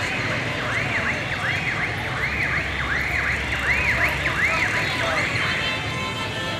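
Electronic vehicle alarm or siren sounding a fast run of rising-and-falling chirps, two to three a second, which stops about five and a half seconds in, over the steady hubbub of a busy street market.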